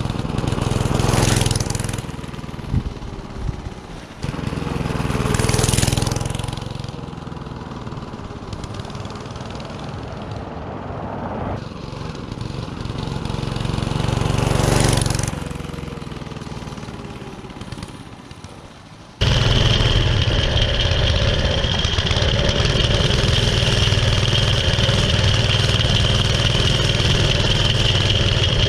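Vintage mini bike's small Briggs & Stratton single-cylinder engine. It passes by three times, each time rising and fading away. About two-thirds of the way in, it is heard close up from on the bike, running steadily and loudly with a high whine.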